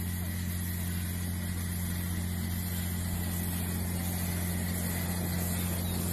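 Ridable miniature live-steam replica of a GWR King Class locomotive running past, its steam hissing, over a steady low hum.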